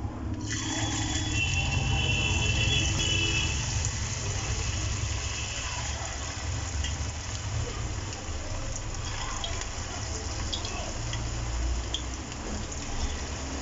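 Cabbage-and-mushroom pakora batter deep-frying in hot oil in a steel kadai: a steady sizzle that starts as the pieces are dropped in, about half a second in.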